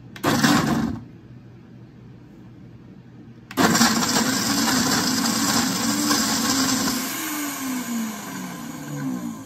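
Countertop blender with a glass jar grinding cashews, walnuts and dates in coconut water into a thick nut cream. It gives one short pulse, then after a pause runs steadily. Its pitch falls over the last two seconds.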